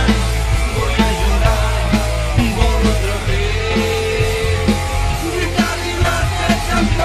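Argentine football song with drums, heavy bass and a sung melody over a steady beat.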